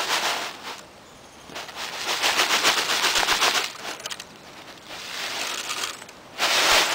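A rice package shaken close to the microphone, rustling and crackling in several bursts, with a fast run of crackles in the middle as rice grains spill out.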